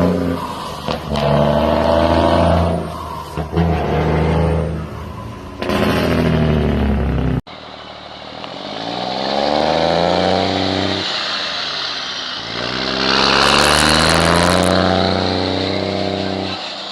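International heavy diesel trucks' engines running loud, the engine note climbing in steps as they pull through the gears. The sound cuts abruptly about seven seconds in to a second pass. A short high hiss comes about thirteen seconds in.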